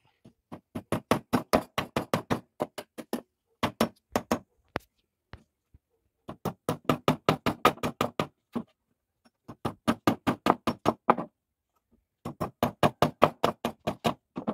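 Claw hammer driving nails into a wooden form board to pin a sheet-metal load-center box in place, in several quick runs of sharp blows, about five a second, with short pauses between.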